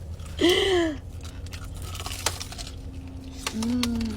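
A person chewing a crunchy fried Korean corn dog, with a sharp crunch about two seconds in. A short vocal sound falling in pitch comes about half a second in, and another near the end.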